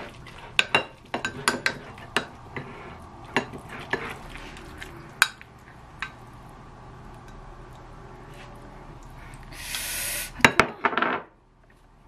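Wooden spoon stirring melted cheese and corn in a ceramic bowl, with repeated sharp knocks of the spoon against the bowl. About ten seconds in, a brief hissing scrape and a quick cluster of clacks as the mixture is scraped out of the bowl.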